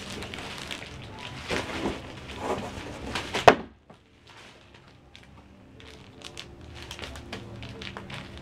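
Clear plastic wrapping crinkling and rustling as it is pulled off a cardboard shipping box, with one sharp, loud crack about three and a half seconds in. Then lighter crackling and clicking as a plastic document pouch on the box is handled.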